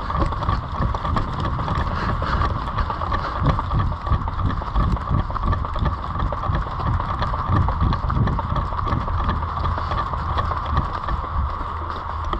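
Wind buffeting a body-worn camera microphone and the rustle and footfalls of a player moving forward, with many small sharp ticks throughout.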